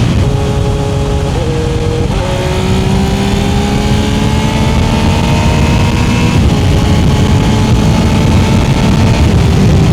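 Triumph engine running under load with a loud low rumble. Its pitch dips about two seconds in, climbs steadily for about four seconds as it accelerates, then drops.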